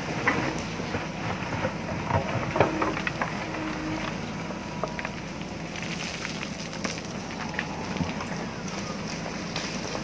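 JCB backhoe loader's diesel engine running steadily under digging load while the backhoe bucket works rocky soil, with repeated knocks and crackle of stones and earth.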